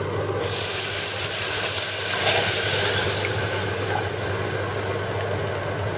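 Milk poured from a cup into a hot saucepan of cooked butter and flour (roux), a steady hissing rush that starts about half a second in.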